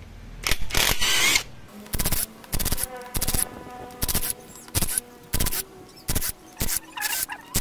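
Cordless drill-driver spinning crankcase screws out of a motorcycle engine case: one longer run about half a second in, then a string of short bursts, roughly two a second.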